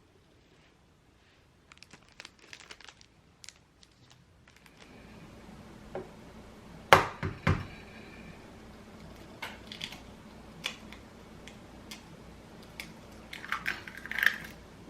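Household handling sounds: light rustling and clicks, then two sharp knocks and scattered clicks, with a quick run of ringing clinks of tableware near the end.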